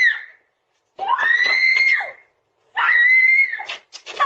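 A person screaming: three long, high-pitched shrieks, each about a second long, the first already under way and ending just after the start.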